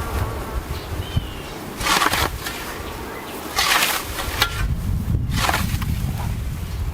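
Scythe blade swishing through tall grass and weeds in strokes, two clear sweeps about two seconds apart and a fainter one near the end, with honeybees buzzing around the hives.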